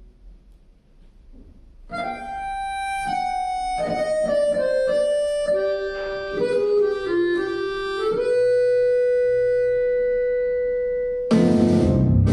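Instrumental intro of a backing track: after a couple of seconds of faint room tone, a slow melody of long held notes on a single wind-like instrument, then drums and the full band come in near the end.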